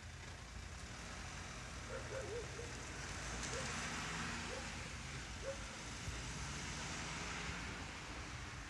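A road vehicle passing out of sight, its noise swelling to a peak about four seconds in and then fading away.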